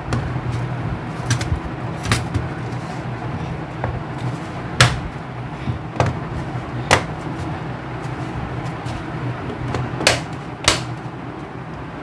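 Plastic bottom cover of a Dell Inspiron laptop being pressed and snapped back into place, its clips catching with sharp clicks every second or two over a steady low hum.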